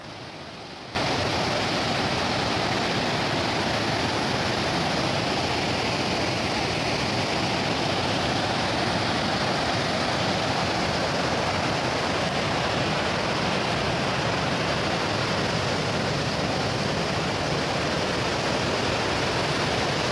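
Waterfall: a river rushing over wide rocky cascades in a steady, loud roar of water that starts abruptly about a second in.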